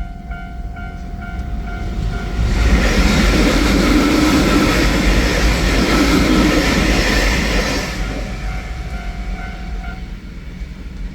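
A train passes through a Japanese level crossing while the crossing warning bell rings in a steady repeating chime. About two and a half seconds in, the rush of the train's wheels and running gear swells loud and drowns the bell, then it fades away after about eight seconds.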